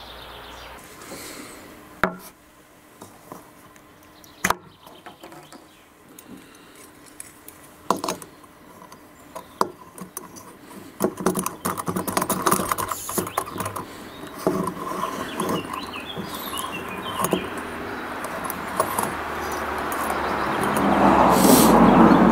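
A small folding gas canister stove being set up on an MSR IsoPro canister: scattered metal clicks and knocks as it is unfolded and handled. A rushing noise builds over the last several seconds.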